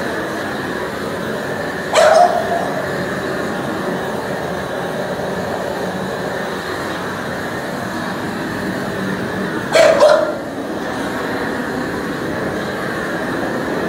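A dog barks: one bark about two seconds in, then two quick barks about eight seconds later, over a steady rushing noise.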